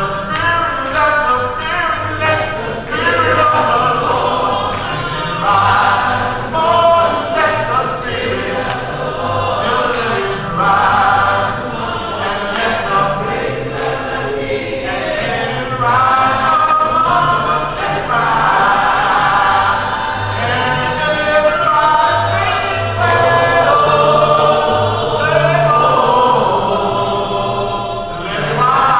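Church congregation singing a gospel hymn together in chorus, a cappella with no instruments.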